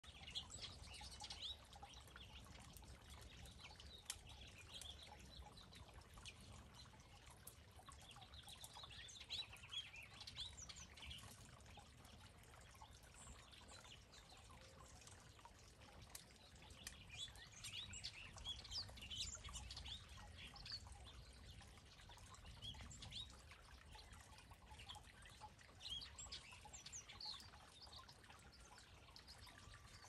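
Scaly-breasted munias (spice finches) giving faint, short high chirps, scattered and coming in small flurries now and then.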